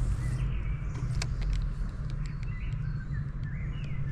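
Steady low outdoor rumble with small birds chirping briefly now and then, mostly in the second half, and a few light clicks.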